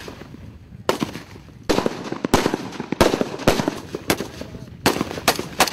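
AK-pattern assault rifles firing on a range: a string of single shots at irregular intervals, roughly one every half second to second, starting about a second in.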